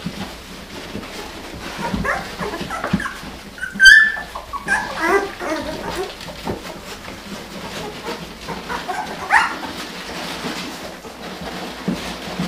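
Sixteen-day-old puppies squeaking and whimpering in short high calls, with one loud sharp yelp about four seconds in and a rising squeal a little after nine seconds.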